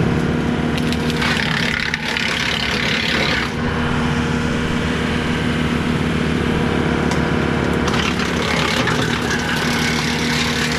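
Tractor engine running steadily, driving a Woodland Mills WC68 PTO-driven wood chipper. From about one to three and a half seconds in, and again from about eight seconds on, there is a harsher crackling noise as small branches are chipped.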